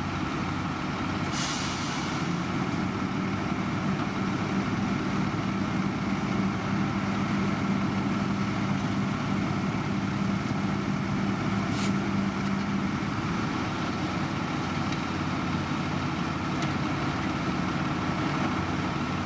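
Heavy diesel construction machinery running steadily, with a steady hum that drops away near 13 s. A short hiss of air comes about a second and a half in, and a sharp click comes near 12 s.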